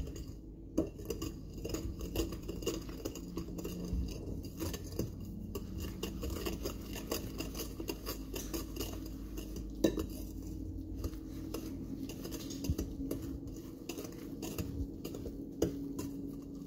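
Danish dough whisk stirring thick batter in a bowl: its metal wire scrapes and clinks against the bowl in a continuous irregular run, with a few sharper knocks.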